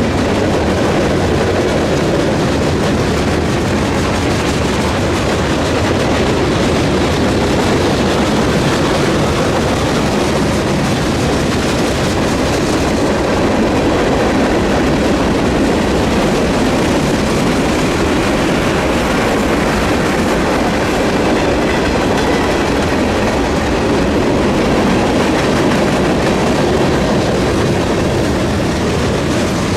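Freight cars of a mixed freight train rolling past, steel wheels on the rails giving a steady, loud rumble and clatter.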